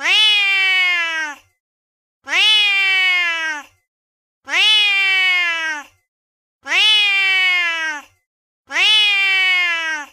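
Recorded angry domestic cat meow from a cat-sounds app, the same drawn-out call played five times about two seconds apart, each rising quickly and then sliding down in pitch.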